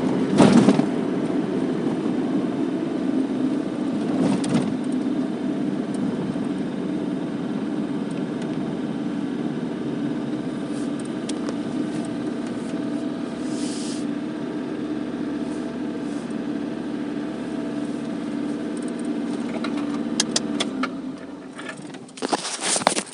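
Car engine heard from inside the cabin, running steadily with a couple of knocks early on, then switched off about 21 seconds in, followed by a few sharp clicks and rattles.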